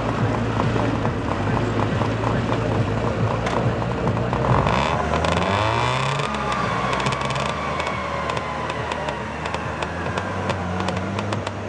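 Small homemade tractor's engine running as it drives through deep mud, its pitch shifting up and down about halfway through as the revs change.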